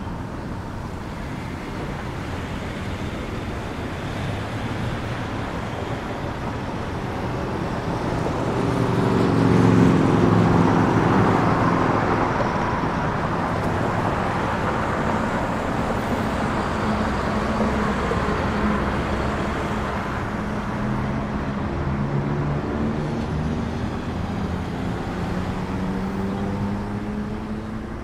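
A motor vehicle's engine running with a steady rumble. Its drone swells to its loudest about ten seconds in, then eases off, and comes back more weakly later.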